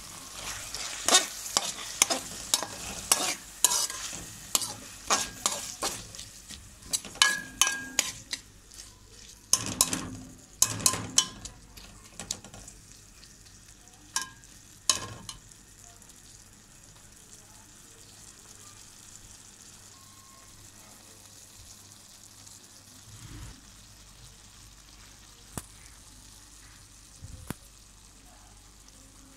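Metal slotted spoon scraping and knocking against a metal pan while stir-frying vegetables, over a steady frying sizzle. The stirring strokes come fast and loud at first and stop about halfway through, leaving the quieter sizzle with an occasional knock.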